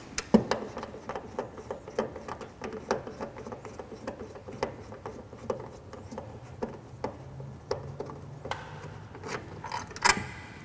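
A Phillips screwdriver backing a screw out of the bottom of a motor switch box: a run of small irregular clicks and scraping, with a few louder clicks near the end.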